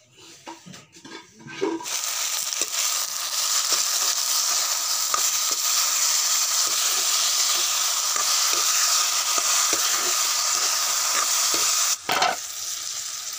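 Vegetables (ridge gourd and potato) sizzling in hot oil in an iron wok over a wood fire while being stirred with a metal ladle: a steady frying hiss that starts about two seconds in. A brief knock near the end, after which the sizzle is quieter.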